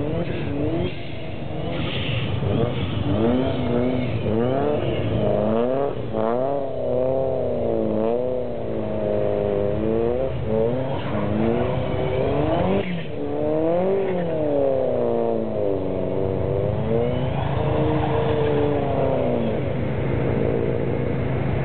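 Station wagon's engine revving up and down again and again while it drifts on snow, over a steady low engine hum.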